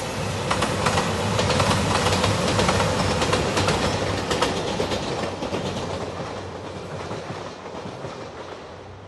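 JR Shikoku 2700-series diesel limited express train passing, its engines running and its wheels clacking over the rail joints. It is loudest in the first few seconds, then fades steadily as it moves away.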